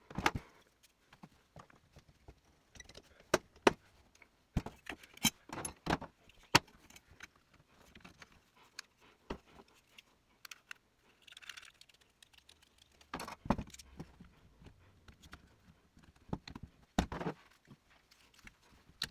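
Metal pieces and clamps being handled and set onto freshly glued leather: irregular sharp metallic clicks, clinks and knocks that come in clusters with quiet gaps between them.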